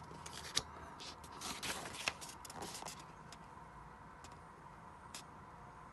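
Faint rustling and a few soft clicks of paper as a page of a paperback manga is turned and handled, in the first half. Then only a quiet room tone.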